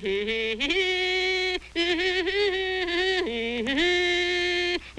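Cartoon character humming a tune in long held, buzzy notes that step up and down in pitch, with short breaks between phrases.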